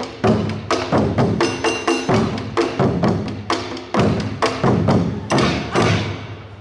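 Awa odori festival music: taiko drums and percussion beating a quick, driving rhythm of about three strikes a second, with heavy drum hits and a few short metallic rings. It eases off near the end.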